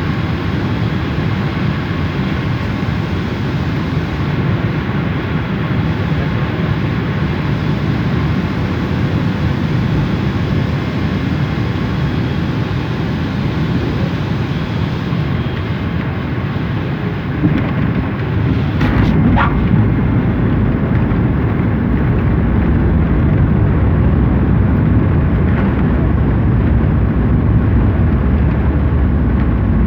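Airliner cabin noise during a landing: a steady engine-and-air roar, then about two-thirds of the way through a jolt and a sharp knock, after which the roar grows louder and deeper, as at touchdown and the rollout with the engines spooling up.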